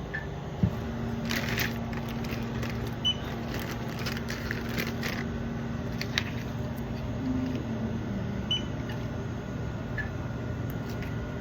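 Short electronic beeps at a store checkout counter, about six spread out at two different pitches, as items are scanned and rung up, with a few sharp clicks and some rustling over a steady low hum.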